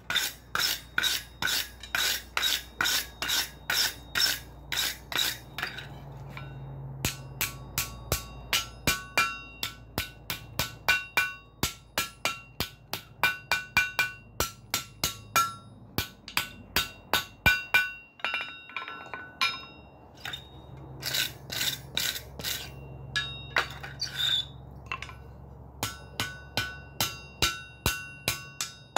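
A wire brush scrubs hot steel on an anvil for the first few seconds, then a hand hammer strikes the glowing flat bar on the anvil about two to three times a second, each blow ringing, to fold the bar over for a forge weld. The hammering pauses briefly about two thirds of the way through.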